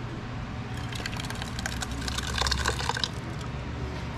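Thick, chunky blended pepper sauce pouring from a glass blender jug into an aluminium saucepan: a wet, splattering pour that picks up about a second in and eases off after about three seconds.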